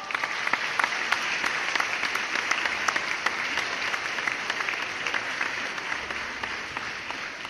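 Audience applauding: dense clapping that slowly dies down toward the end.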